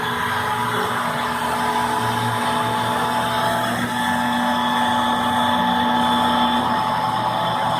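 MDF-framed CNC machine running inside a styrofoam-and-cardboard acoustic enclosure: a steady machine hum with several held motor tones. The tones shift pitch or drop out as the axes change moves, one of them about two-thirds of the way through.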